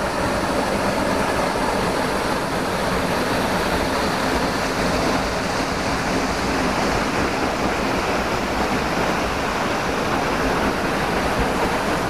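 Waterfall: a steady rush of falling water pouring into its pool.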